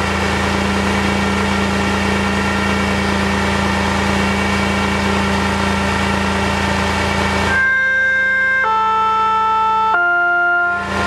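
Wandel & Goltermann electronic siren's loudspeaker giving a steady electrical hum. About seven and a half seconds in, three held electronic tones, each about a second long, step down in pitch, and then the hum returns.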